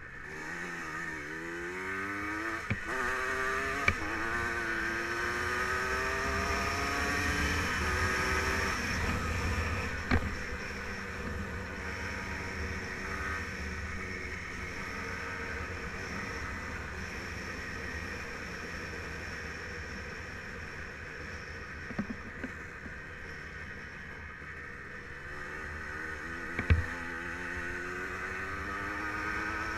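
Yamaha Blaster 200's single-cylinder two-stroke engine accelerating hard, its pitch climbing through several gear changes for the first several seconds. It then runs at a steadier cruising pitch and climbs again near the end, with a few sharp knocks along the way.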